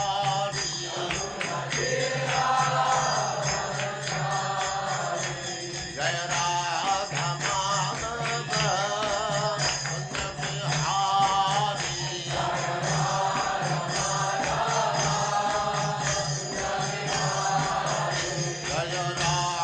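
Devotional mantra chanting sung to music over a steady low drone.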